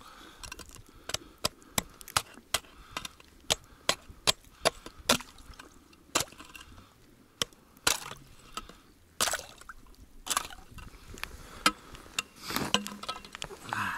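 Metal ice chisel (pešnya) chopping through a refrozen crust of ice in an ice-fishing hole: a run of sharp strikes and crunches, quick at first, then more spaced out, with a last cluster near the end. The hole froze over in the night frost and is being broken open again.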